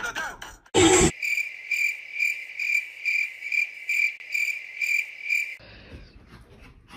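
A short, loud thump about a second in, then crickets chirping: one even, high chirp repeating about twice a second, cut off suddenly near the end. It is the stock awkward-silence gag effect laid over the dog clip.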